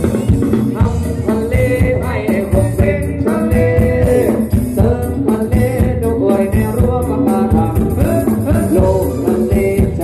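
Live combo band playing a Thai ramwong dance song with singing, amplified through stage speakers.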